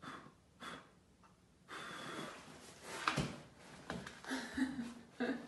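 A person blowing out a birthday candle in several breathy puffs, the longest about two seconds in and a sharp one about three seconds in, with a little breathy voice near the end.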